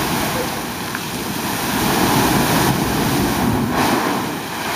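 Sea blowhole spouting: a loud rushing hiss of seawater and air forced up through a hole in a rock shelf, mixed with surf washing over the rocks. It swells about two seconds in, eases briefly near the end, then surges again.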